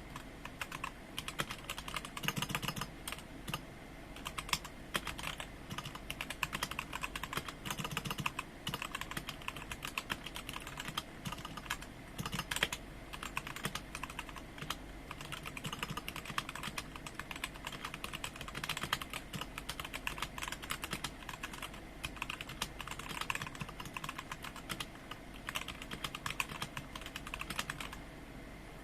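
Fast continuous typing on a mechanical keyboard with Gateron brown switches: a dense, steady stream of key clicks that stops near the end.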